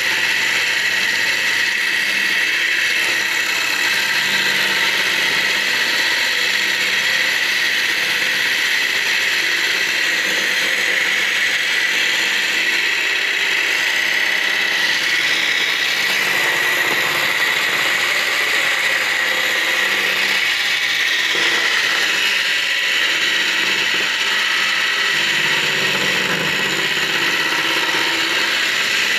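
Bench-mounted circular saw running with a steady high whine, ripping thin strips of wood as they are pushed through the blade.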